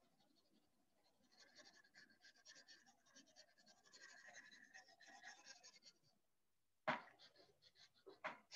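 Pencil shading on sketch-pad paper: faint, quick scratching strokes, followed about seven seconds in by a single soft knock, the loudest sound, and a few small clicks near the end.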